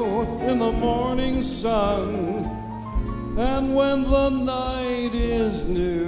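Live dance band playing a song, a lead singer holding long notes with vibrato over sustained instruments and steady drum hits.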